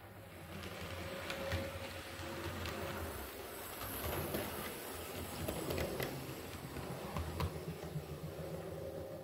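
Model diesel multiple unit running along the track: a steady low motor hum and rumble of wheels on the rails, with a few sharp clicks.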